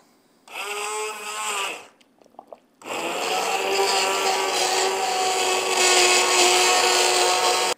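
Immersion (stick) blender puréeing a pot of cooked soup: a steady motor hum for about a second and a half, then after a short pause with a few small clicks, a longer run of nearly five seconds that cuts off sharply.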